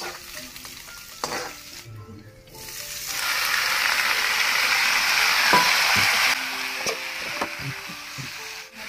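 Thinly sliced vegetable tipped into hot oil in a pan, sizzling loudly from about three seconds in. The sizzle drops to a quieter frying hiss after about six seconds, with the knocks of a spatula stirring against the pan.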